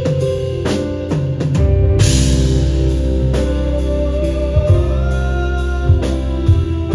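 Live band playing a ballad: drum kit, guitar and bass, with a cymbal crash about two seconds in where the low end of the band fills in. A male voice sings over the band in the second half.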